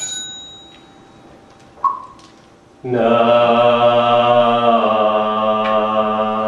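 A ritual bell or bowl is struck once and rings away. A shorter struck tone follows about two seconds in. About three seconds in, a congregation begins chanting Buddhist liturgy in unison on long held notes.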